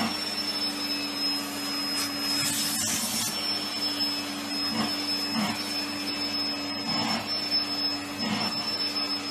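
Steady whine of a small electric motor with rushing air, like a vacuum cleaner running, holding one high tone and one low hum throughout.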